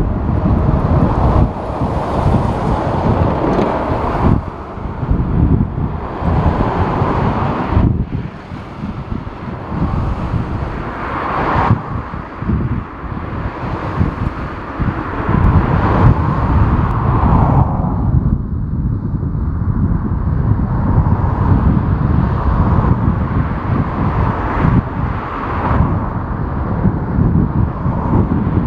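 Strong gusty wind buffeting the microphone, rising and falling every few seconds, over the noise of a jet airliner at the airport.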